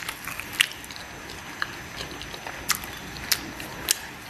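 A handful of short, sharp clicks, about five scattered over four seconds, over faint room noise.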